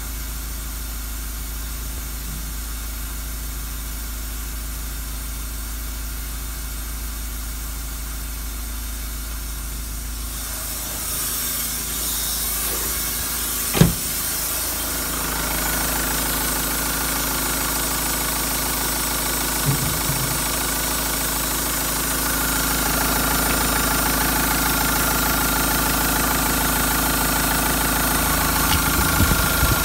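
Renault Megane II's 1.9 dCi (F9Q804) four-cylinder turbodiesel idling steadily at about 1000 rpm, first heard muffled from inside the cabin, then louder and clearer from about ten seconds in as the engine bay is approached. A single sharp knock about fourteen seconds in.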